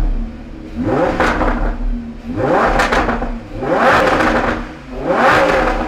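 Lamborghini Huracán's naturally aspirated V10 revved repeatedly in neutral. There are about four quick blips, each climbing steeply in pitch towards 7,000 rpm and falling back to a low idle.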